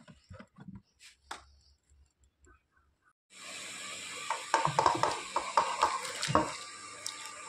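A steel pot of hot, steaming water on the stove gives a steady hiss that starts suddenly about three seconds in. From about a second later, potato slices are tipped in with a run of clunks and splashes. Before the hiss there are only a few faint taps.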